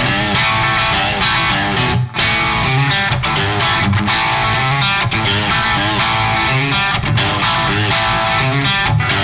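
Electric guitar with single-coil pickups played through a KOR EdenDrive overdrive pedal, giving a driven rock tone. The playing mixes notes and chords, with a brief break about two seconds in.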